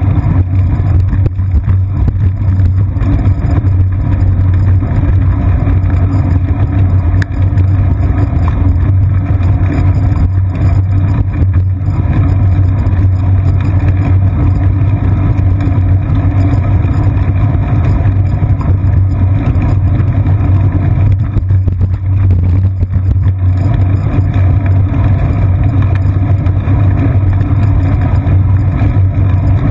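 Steady, loud low rumble from a seat-post-mounted GoPro Hero 2 on a moving bicycle: road vibration through the mount and wind on the camera housing, with a strong low hum.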